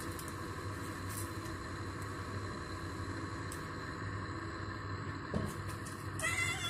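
Steady low background rumble, then a cat meows once, briefly, near the end while it is being shampooed and massaged in its bath.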